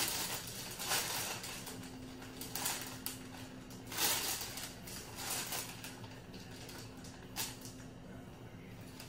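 Raw chicken wings sliding from a stainless steel mixing bowl into a plastic zip-top storage bag: the plastic crinkles and rustles in irregular bursts, with soft scrapes of the metal bowl, over a steady low hum.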